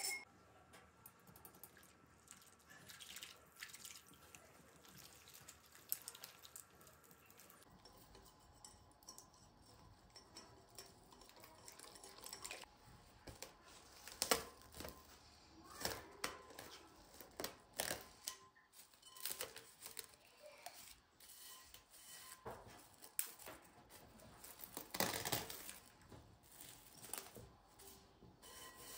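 Plastic cling film crinkling and rustling as it is pulled from its roll, torn off and stretched over a glass bowl. It comes as a run of sharp crackles starting about eight seconds in.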